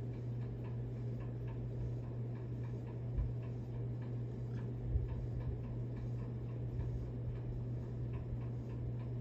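Faint ticking over a steady low hum, with two soft low thumps about three and five seconds in.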